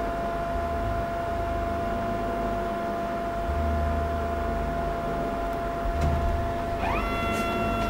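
X-ray plate scanner running while a radiograph is read in: a steady whine over a low hum that comes and goes, then about seven seconds in a motor whine rises in pitch and holds.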